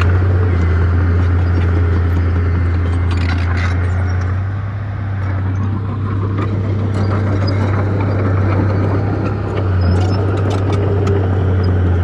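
Komatsu crawler bulldozer's diesel engine running with a steady low drone while it pushes dirt and rock with its blade, with scattered clanks and knocks from the tracks and stones. The drone eases briefly twice, about five seconds in and near the end.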